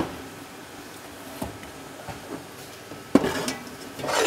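Large stainless-steel stockpots knocking and clanking as they are set down and shifted on an electric stove top. A few light knocks come first, then a sharp metallic clank a little past three seconds in, with ringing and clatter after it.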